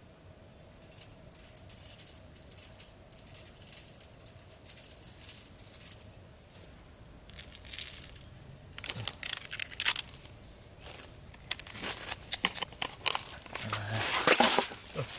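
Repeated bursts of dry rustling and rattling crackles, loudest near the end.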